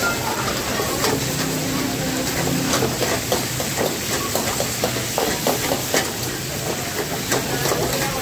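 Chicken pieces and whole tomatoes sizzling in hot oil in a metal karahi, with a long metal ladle scraping and knocking against the pan many times as the food is stirred.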